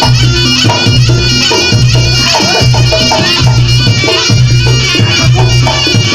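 Reog Ponorogo gamelan music: a shrill, wavering slompret (shawm) melody over drums and a steady pulse of low notes, about one and a half a second.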